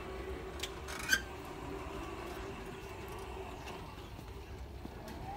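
Shopping cart rolling along a store aisle: a steady hum over a low rumble, with two sharp rattles about a second in.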